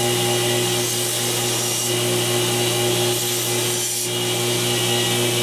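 Electric belt grinder running steadily while a stainless steel knife blade is ground against the belt to reshape its broken tip: a constant motor hum under a continuous grinding hiss.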